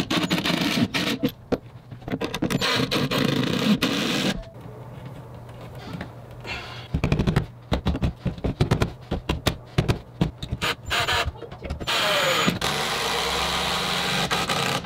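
Ryobi cordless impact drivers driving screws through solid-wood cleats, in several long bursts of rapid rattling impacts with short pauses between them.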